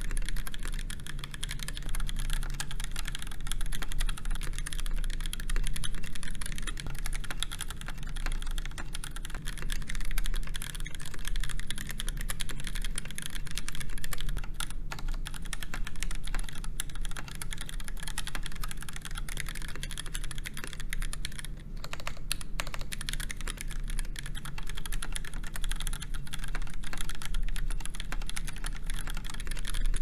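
Steady touch-typing on a KBD8X MKII mechanical keyboard built with a brass full plate, stock Gateron Yellow linear switches and GMK 9009 keycaps. Dense, continuous key clacks, with the case alternating between a polycarbonate top on an aluminium bottom and an all-polycarbonate case.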